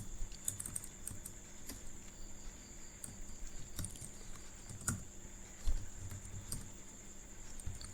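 Computer keyboard typing: faint, scattered keystrokes at an uneven pace.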